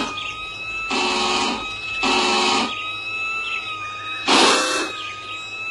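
Fire-station alarm buzzer sounding in three short harsh blasts, with pauses between them, over a faint steady high tone.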